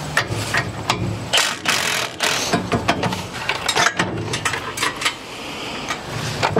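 Cordless power driver running in several short buzzing bursts as it spins bolts off a Bush Hog 3008 mower's slip clutch, with sharp metal clicks from tools and parts in between.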